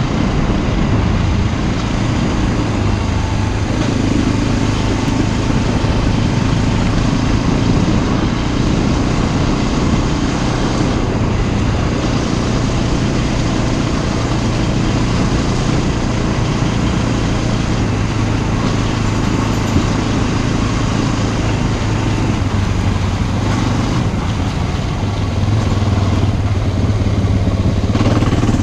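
Motorcycle engine running steadily under way, with wind and tyre noise from riding, heard from the rider's position.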